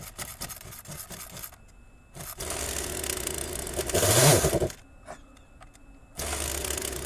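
Two-stroke gas chainsaw being pull-started. There are two pulls of the recoil starter, about two and a half and six seconds in, each a burst of engine noise that rises and falls in pitch and then stops, without the engine catching. A few light knocks come first as the saw is handled.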